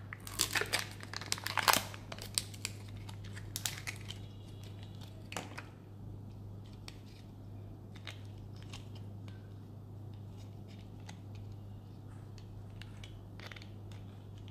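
Thin plastic packaging crinkling and tearing as a chocolate egg's plastic capsule is opened and a small plastic toy car is unwrapped: a dense run of sharp crackles in the first two seconds, a few more up to about five seconds in, then sparse faint clicks and rustles. A steady low hum runs underneath.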